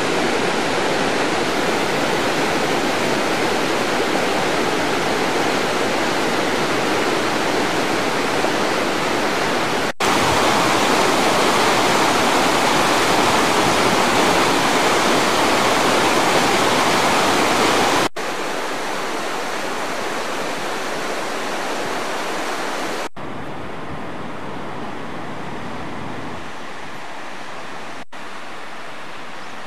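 Fast mountain stream rushing over rocks: a steady hiss of water with no rhythm. It jumps louder about ten seconds in, then drops back in steps at sudden changes and is quieter near the end.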